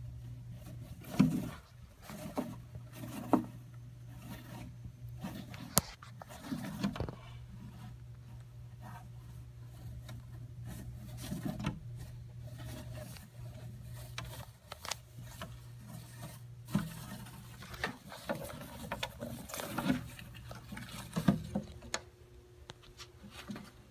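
Savannah monitor shaking and thrashing a mouse in its jaws on loose bark substrate: irregular thumps and scratchy scrapes, over a steady low hum.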